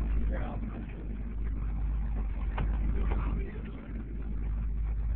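Fishing boat's engine running at sea, a steady low rumble, with wind buffeting the microphone.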